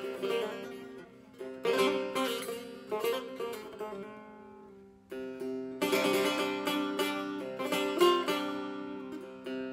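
Setar, the Persian long-necked lute, played solo in an improvisation: phrases of plucked notes over ringing lower strings. One phrase dies away almost to silence just before the midpoint, and a quick run of notes starts about five seconds in.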